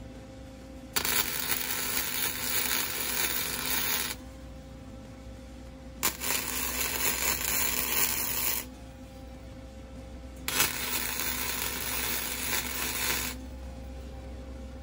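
Self-shielded flux-core (Innershield) wire welder arc crackling and sputtering in three runs of about three seconds each, laying tack welds on steel. Between the runs there is a low steady hum.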